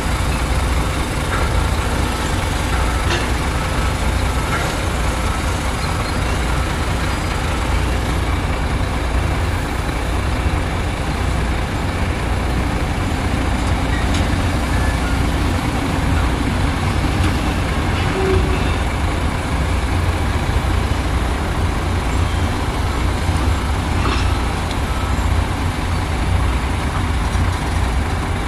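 Heavy diesel dump trucks and excavators running, a steady low rumble.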